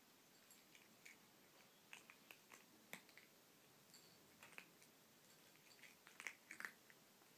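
A cat eating from a bowl: faint, irregular chewing clicks and lapping smacks, with a quick cluster of louder ones about six seconds in.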